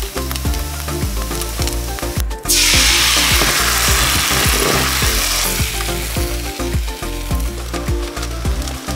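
Banh xeo batter frying in a hot oiled wok: a steady sizzle, then a sudden loud hiss about two and a half seconds in as fresh batter hits the pan, easing back to a quieter sizzle over the next few seconds.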